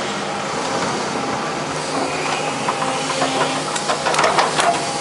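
Daewoo 220LC excavator's diesel engine running steadily under hydraulic load. From about two seconds in, metal clattering and sharp knocks build up, heaviest near the end, as the machine works the broken concrete.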